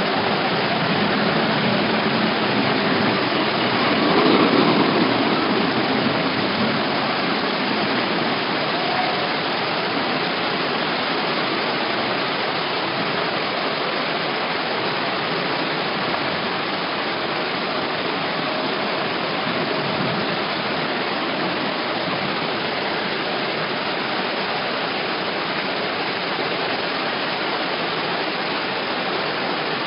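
Steady loud rush of floodwater pouring along a city street, swelling briefly about four seconds in.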